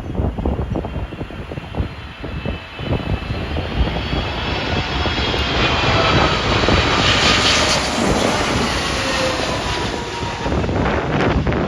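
Jet airliner landing at Heathrow, passing low overhead on final approach. Its engine whine builds, peaks about two thirds of the way in and falls in pitch as it goes by, over gusts of wind buffeting the microphone.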